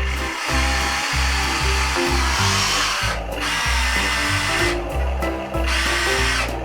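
Electric drive motors of a Huina 1593 1/14-scale RC excavator whirring, with short pauses where the motors stop, over background music with a stepping bass line.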